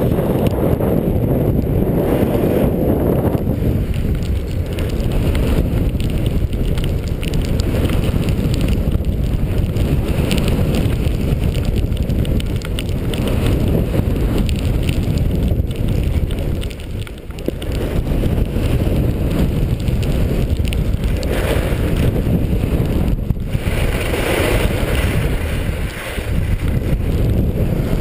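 Wind rushing over a helmet-mounted camera's microphone while skiing downhill, with the hiss and scrape of skis on snow. It is a steady rumble that dips only briefly, partway through.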